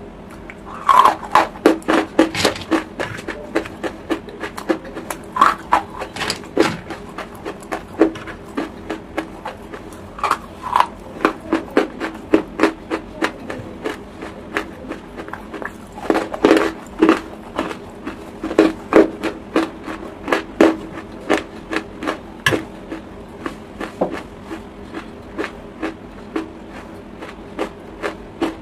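Close-miked chewing of chalk lumps: irregular crisp crunches and clicks as the pieces are bitten and ground between the teeth, in bunches around a second in, around the middle and again a little later. A faint steady hum lies underneath.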